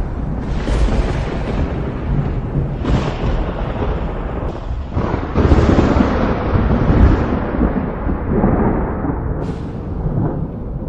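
Thunder rolling continuously, with fresh cracks breaking in about every two to three seconds; the heaviest peal begins about five and a half seconds in.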